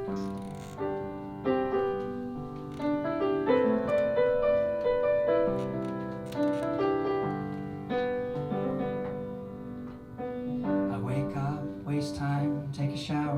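Piano playing an instrumental introduction to a song, chords and single notes ringing out one after another. About eleven seconds in, a strummed acoustic guitar joins with a steady rhythm.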